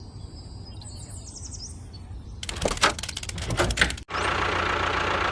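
Faint bird chirps over a low hum. Then, a couple of seconds in, a quick run of metal knocks and clatter. After an abrupt cut, a steady engine running with a thin whine.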